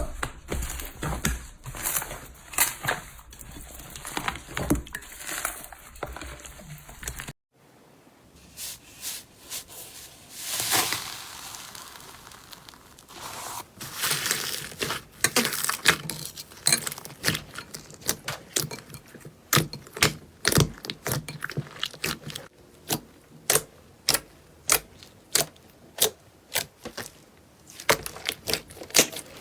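Slime being squeezed, poked and pulled, giving dense sticky clicks, pops and crackles. The handling breaks off briefly about seven seconds in, then resumes, with the pops coming about twice a second near the end.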